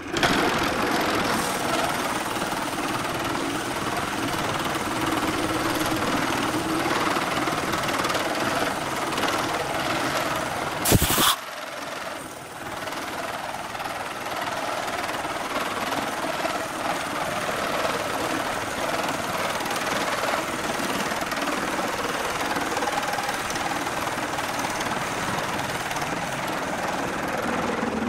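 Wood lathe running while a long hand-held hollowing tool cuts inside the bored end of a spinning wooden vessel. The cutting noise starts suddenly and stays steady, with a brief loud knock about eleven seconds in, after which the cutting is quieter for a moment.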